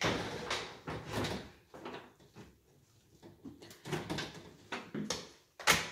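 A door being moved and shut: a series of scrapes and knocks, the loudest a sharp knock near the end.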